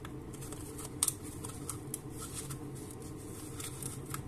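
A few light clicks and rustles of a thin plastic strip, cut from a plastic bottle, being slid out from under a piston ring on a piston, the ring ticking against the piston as it comes free. A steady low hum runs underneath.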